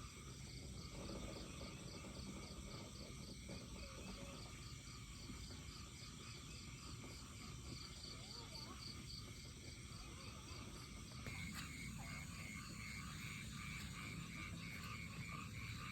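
Faint outdoor chorus of insects and frogs calling: an even, high pulsing call throughout, joined about eleven seconds in by a second, lower pulsing call.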